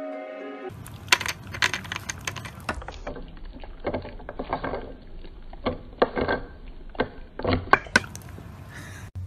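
Shiba Inu licking at the cap of a plastic bottle: a run of irregular licking sounds and sharp clicks of tongue on plastic. A brief bit of soft music plays at the very start.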